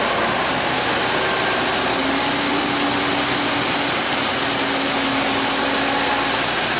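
Harvest machinery running steadily in a corn field: a loud, even rushing noise with a faint steady hum that appears about two seconds in and fades near the end.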